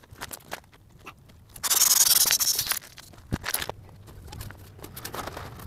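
Vinyl of an Intex K2 inflatable kayak being handled and rubbed at its valve, with scraping and small clicks. A loud rush of air hisses for about a second, a little over a second and a half in.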